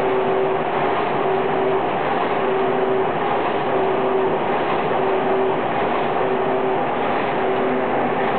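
Muller Martini Prima saddle-stitching line running: a steady mechanical clatter from the gathering chain and stitching head, with a tone that comes and goes about once a second.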